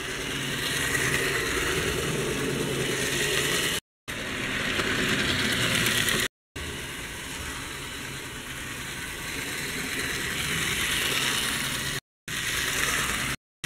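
Mehano HO-scale model train running on its track close to the microphone: the steady whir of its small electric motor and wheels on the rails, swelling and easing slightly. The sound cuts out abruptly for a moment four times.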